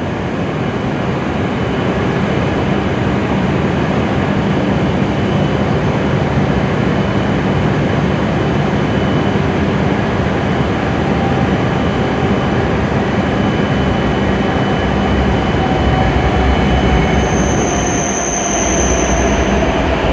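E7-series Shinkansen train pulling into the platform at low speed, with a steady rush of running noise and a faint whine that falls in pitch as it slows. A brief high-pitched squeal sounds near the end.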